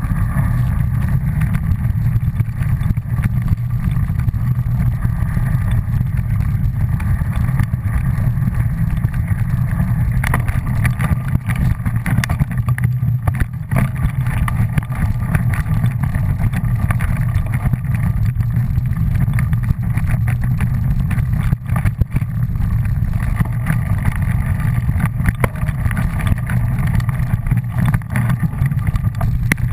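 Steady loud low rumble of a vehicle ridden fast along a leaf-covered dirt trail, with small irregular jolts and rattles.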